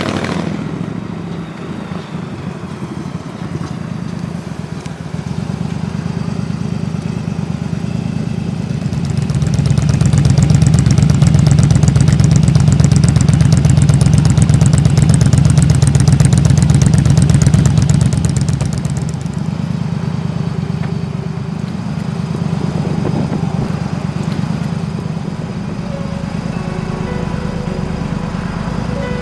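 Yamaha Drag Star 1100's V-twin engine running, held at higher revs and louder for several seconds near the middle, then settling back to idle.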